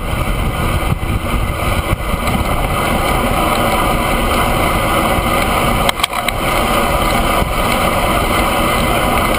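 Wind rushing over a handlebar-mounted camera on a road bike riding at speed, mixed with tyre and road noise. There is a short click and a momentary drop about six seconds in.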